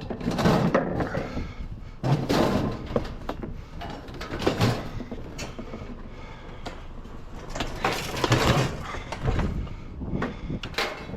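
Irregular knocks, rattles and scuffs from a piece of curbside scrap being handled, coming in several separate bursts.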